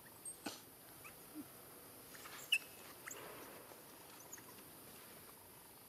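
Faint background hiss with a few soft clicks and one short, high squeak from an animal about two and a half seconds in.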